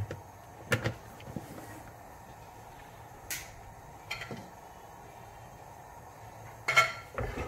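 A few light knocks and clatters of kitchen things being handled, the loudest pair near the end, over a faint steady background hum.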